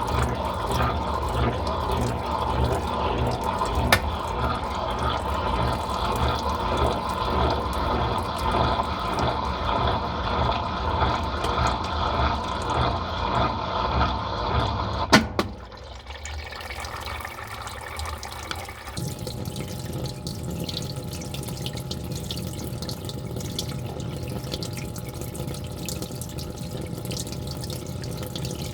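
Brastemp Total 7 kg (BWL07) washing machine running with a regular low pulsing, then a sharp click about halfway through, after which the sound changes to a quieter, steady rush of water.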